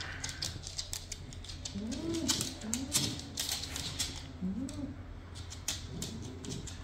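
Shiba Inus making short, soft whining calls, each rising and falling in pitch, about four in a row, with quick clicking of claws on a wooden floor.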